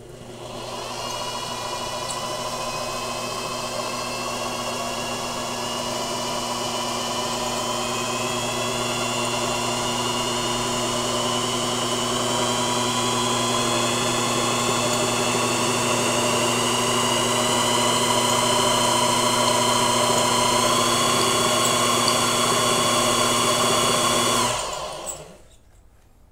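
Brushed washing-machine motor running at high speed, driving a three-phase induction motor used as a generator through a V-belt while it charges a battery: a steady hum under a whine whose pitch creeps slowly upward. Near the end the motor is switched off and the sound dies away quickly.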